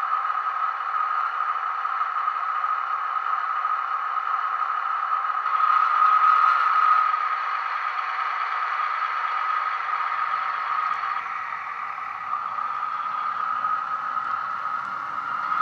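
DCC sound decoders in Bachmann OO-gauge diesel multiple unit models, fitted with Legomanbiffo sound, playing a diesel engine through their small speakers: a steady engine hum that swells louder for about a second and a half around six seconds in as one unit powers away. From about ten seconds in, a faint low rattle comes in as the unit runs along the track.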